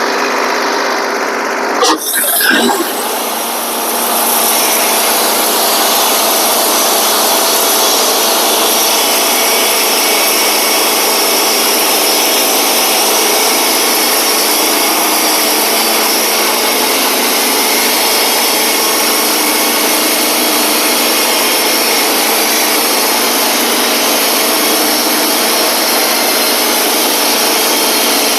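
Wood-Mizer LT15 portable band sawmill running steadily as its blade cuts through a pine log. A few sharp knocks come about two seconds in, and the sound then gets louder and stays steady from about four seconds.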